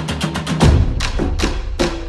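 Background music with a steady percussive beat; a deep bass comes in about half a second in, and there is a short break near the end.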